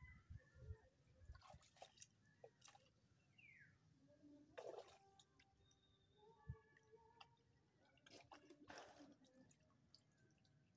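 Near silence, with faint scattered clicks and small water drips and splashes.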